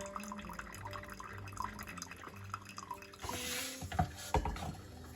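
Water dripping in quick small drops in a small room. A little after three seconds comes a short hiss, then two sharp knocks.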